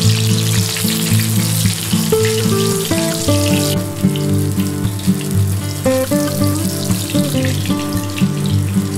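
Eggplant slices sizzling as they fry in oil in a pan, strongly for the first few seconds, then suddenly much fainter about four seconds in. Background instrumental music plays throughout.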